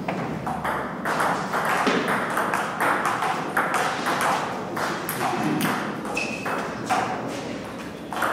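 Table tennis rally: the celluloid ball clicking off the players' bats and bouncing on the table in a quick, irregular run of sharp knocks, with the echo of a large hall.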